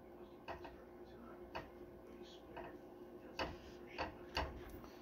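Faint, irregular clicks and ticks from a frying pan with a quesadilla and spatula in it, about one a second, over a low steady hum.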